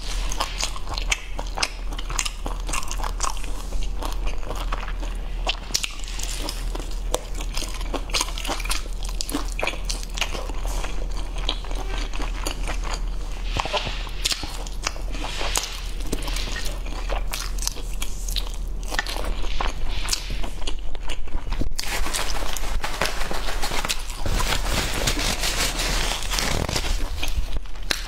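A person biting and chewing crispy battered fried meat on the bone, the coating crunching in many small irregular crackles.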